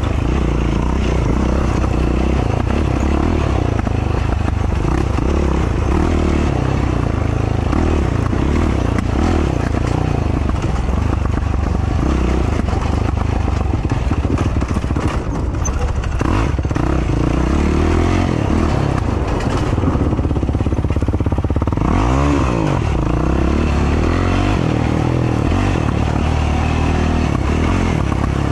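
Racing ATV's engine running under throttle along a twisting trail, its revs rising and falling with the speed. About two-thirds of the way through, the revs drop and then climb sharply again.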